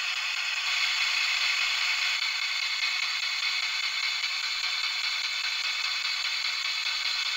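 Spirit box radio static: a steady hiss from the handheld device's small speaker, with no voices coming through.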